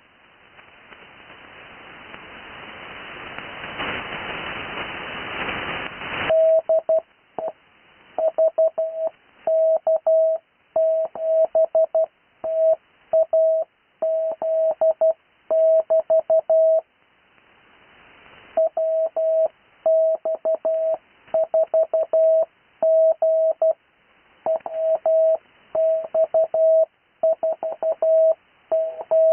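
Morse code (CW) call signs sent as a single keyed mid-pitched tone in dots and dashes, at a steady speed in groups, with a gap of about a second and a half midway. It starts after about six seconds of rising hiss.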